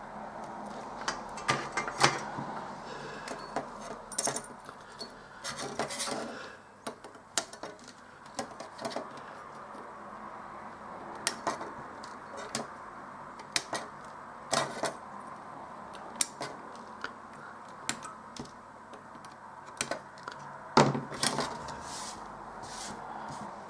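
Scattered small metallic clicks and taps of hand tools and components being handled while through-hole parts are fitted and soldered onto a circuit board, with a steady low background hiss; the sharpest clicks come about two seconds in and near the end.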